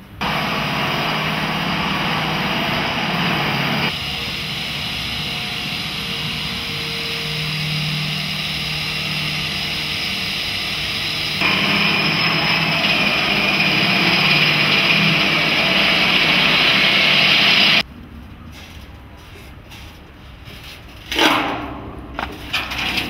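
A power tool running loudly and steadily on the steel frame work, cutting off suddenly about three-quarters of the way through. A single sharp metal clank follows near the end.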